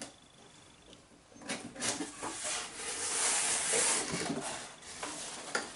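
Rustling and crinkling of packaging, with small clicks and knocks, as a G-scale model box car is handled and drawn out of its box. It starts about a second and a half in and is loudest around the middle.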